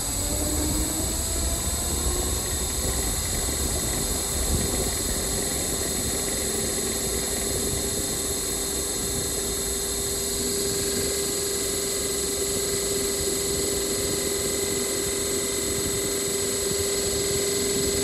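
2019 Mitsubishi Hyper-Heat ductless heat pump starting up in heat mode and ramping up power: a steady whine that rises slightly in pitch in the first few seconds and then holds, over a constant rush of fan and airflow noise.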